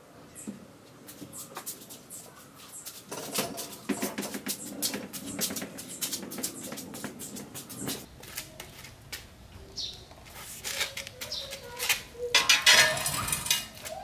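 Metal-wheeled hand truck rattling and clattering as it carries a refrigerator over a concrete floor, with many sharp knocks. Near the end there is a louder burst of knocking and scraping as the fridge is set down and the hand truck pulled out from under it.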